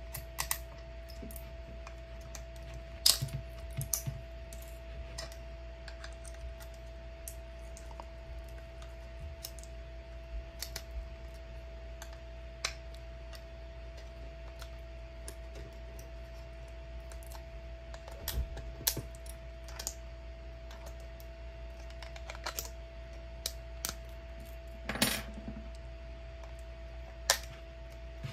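Irregular sharp clicks and small snaps of a metal pick tool prying and breaking leftover bits of plastic off a 3D-printed part, with a longer scraping run about 25 seconds in and a snip near the end.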